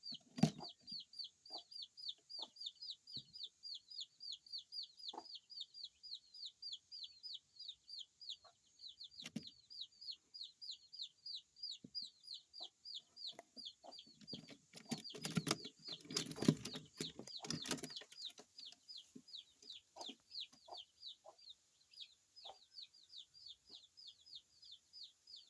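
Pigeon squabs begging while being fed: a rapid, steady string of high peeps, about four or five a second. A little past the middle come a few seconds of louder rustling and scuffling.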